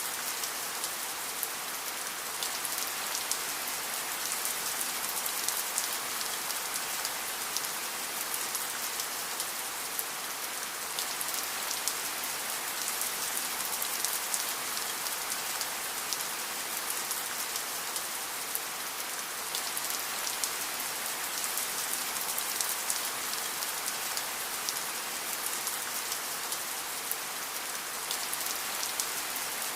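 Steady rain falling: an even hiss, mostly in the upper range with little low rumble, and many separate drop ticks on top.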